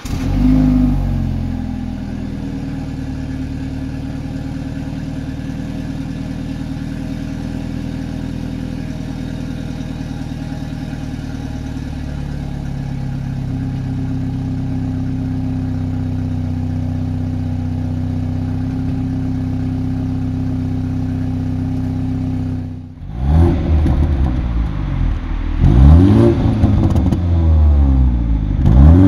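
2018 BMW 430i Gran Coupe's 2.0-litre turbocharged four-cylinder idling steadily at the tailpipes just after a cold start. It flares briefly as it catches, then holds an even idle. About 23 seconds in it is revved in several quick blips, each rising and falling in pitch.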